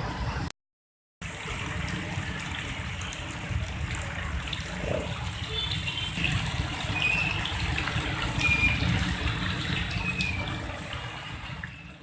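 Floodwater rushing and splashing steadily with a low rumble, cut off completely for under a second near the start. A few short high tones come through in the second half before it fades out at the end.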